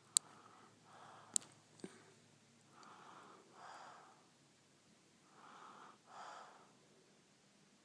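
A sleeping young girl snoring and breathing hard, each cycle a noisy rush of air in and then out, repeating about every two and a half seconds. A few sharp clicks in the first two seconds.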